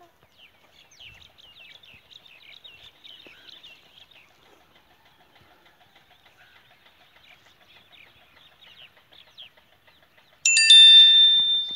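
Many small birds chirping in quick, short calls, busiest in the first few seconds and fainter afterwards. Near the end a sudden loud ringing tone with several pitches cuts in and is the loudest sound.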